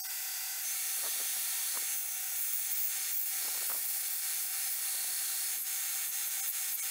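Belt grinder running steadily with a hiss and a low motor hum, as a small forged steel cross is held against the abrasive belt to grind and clean it up.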